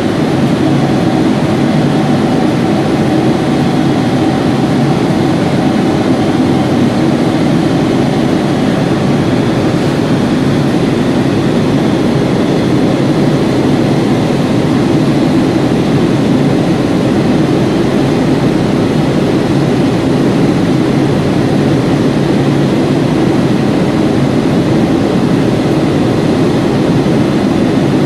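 Boeing 777-300ER's GE90 jet engines running at idle as the airliner taxis slowly in, a steady muffled drone heard through terminal window glass.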